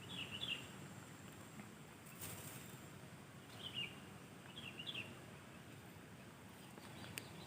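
A bird calling in three short chirping phrases over a steady low outdoor background, with one brief sharp noise about two seconds in.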